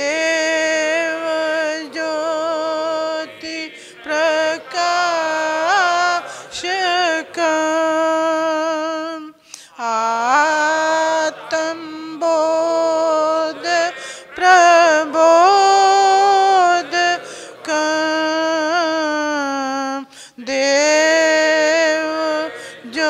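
Women's voices singing a slow Sanskrit devotional hymn, each syllable stretched into long held notes with wavering ornamental turns. The singing breaks off briefly about ten and twenty seconds in, between phrases.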